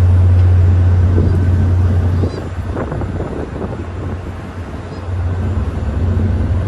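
Steady low engine hum under road-like noise. It drops off abruptly about two seconds in and comes back near the end.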